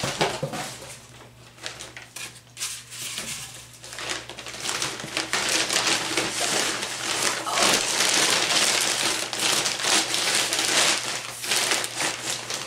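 A plastic shipping bag crinkling and rustling as hands rummage in it and pull a cardboard box out. The crinkling grows louder and busier about five seconds in.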